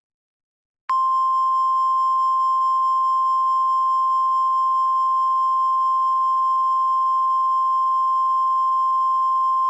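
Weather alert attention tone, a single steady high-pitched tone near 1,050 Hz like the NOAA Weather Radio warning alarm. It starts about a second in, holds unchanged for about nine seconds, then cuts off. It signals that a National Weather Service alert, here a freeze watch, is about to be read.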